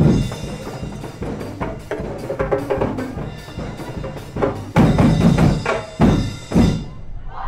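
Percussion music of drums and sharp wooden clicks beating a rhythm, with heavier drum strokes about five and six seconds in.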